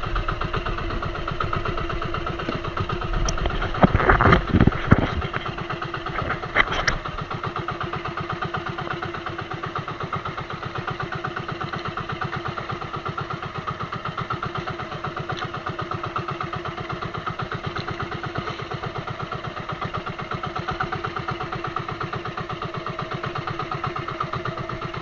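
Small boat engine running steadily with a fast even pulse, with a few loud knocks about four to five seconds in and again a couple of seconds later.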